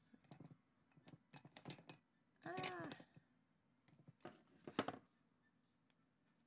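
Quiet handling of a plastic eyeshadow palette: scattered small clicks and taps, a brief hummed vocal sound about two and a half seconds in, and a short rustle with a sharp tap near five seconds as a tissue is taken up to wipe the palette.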